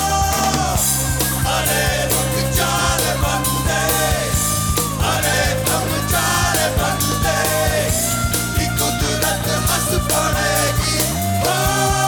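Indian fusion-rock band playing an instrumental passage: drums and bass guitar under a lead melody that bends and slides in pitch. A bass slide rises near the end.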